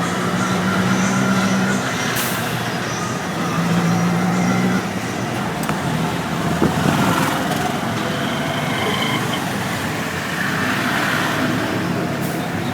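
Busy road traffic with vehicle engines running. Steady pitched notes sound for a second or two near the start and again about four seconds in, and brief hisses come around two seconds and near the end.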